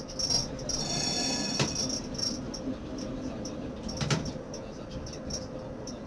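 Tram running along its rails, heard from the driver's cab over a steady low hum: a brief high-pitched wheel squeal about a second in, and sharp knocks a little later and again about four seconds in as the wheels pass over track joints, with light scattered ticking throughout.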